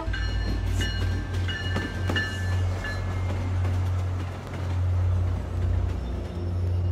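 MBTA commuter rail diesel locomotive and its coaches passing close by, with a heavy steady low rumble. Several brief high squeals and a couple of sharp clicks come in the first three seconds.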